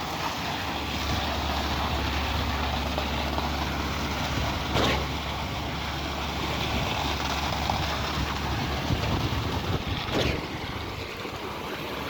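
Diesel engine of a concrete truck running steadily under a broad noisy wash, with a low drone that drops away about ten seconds in. Two short knocks, about five and about ten seconds in.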